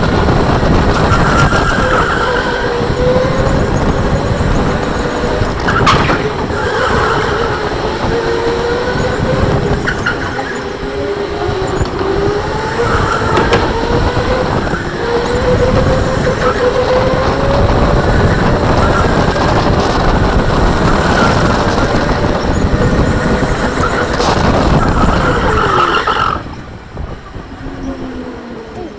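Electric go-kart running at speed: the motor's whine rises and falls with speed over a steady rushing noise, with tyre squeal through the corners. The noise drops off sharply near the end as the kart slows.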